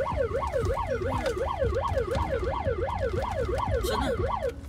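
Electronic siren wailing rapidly up and down, about three sweeps a second, then cutting off near the end, heard from inside a moving car over the low rumble of the cabin.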